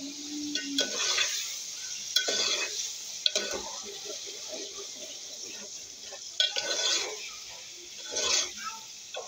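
Steel spoon stirring minced meat and onions in a metal pot, scraping and clinking against the pot in several separate strokes over a steady sizzle of frying.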